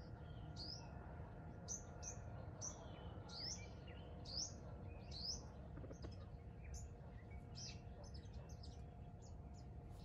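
Birds chirping outdoors: a string of short, high chirps, coming faster in the second half.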